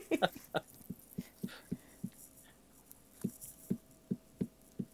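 Soft dabbing taps, about a dozen, with a pause of about a second midway, as a brush works Mod Podge onto a paper postcard collage.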